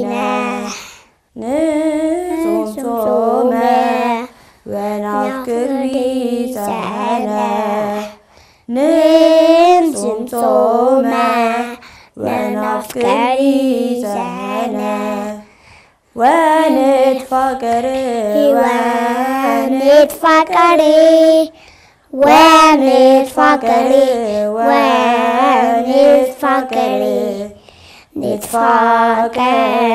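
Children singing an Ethiopian Orthodox hymn (mezmur) in Ge'ez, unaccompanied, in phrases of a few seconds each with short breaths between them.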